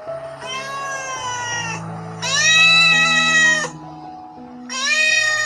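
Domestic cat meowing three times, long drawn-out meows, the middle one the loudest, over soft background music.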